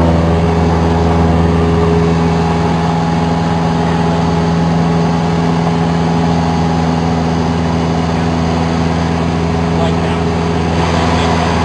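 Light single-engine airplane's piston engine and propeller running steadily in flight, heard from inside the cabin as an even drone with several fixed tones.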